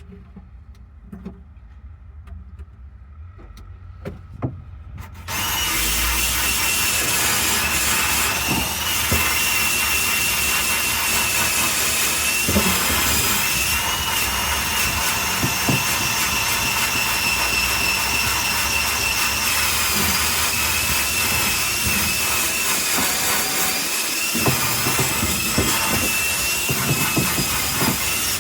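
A few light handling clicks, then about five seconds in a power wire brush starts up and scrubs steadily against rusty car-body steel with a high, steady whine, stripping rust down to bare metal.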